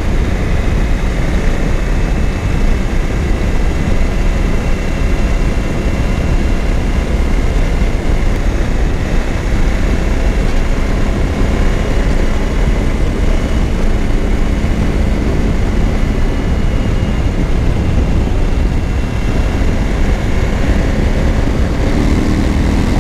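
Motorcycle riding along: steady heavy wind rush on the microphone over the even drone of the Suzuki V-Strom 1000's V-twin engine.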